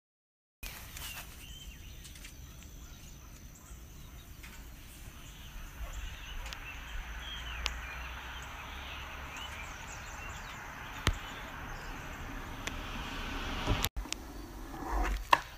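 Outdoor ambience of small birds chirping over a low wind rumble and a faint steady high tone. There is a single sharp click about eleven seconds in.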